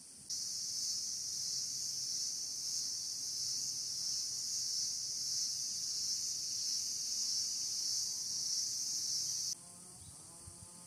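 A dense chorus of insects, such as cicadas or crickets, shrilling steadily and high-pitched. It starts suddenly just after the beginning and cuts off abruptly near the end, leaving a fainter high insect hiss.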